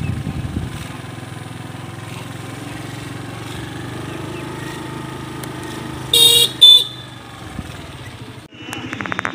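Motor vehicle engine running steadily while driving, with a vehicle horn honking twice in quick short blasts about six seconds in. The engine sound breaks off abruptly shortly before the end.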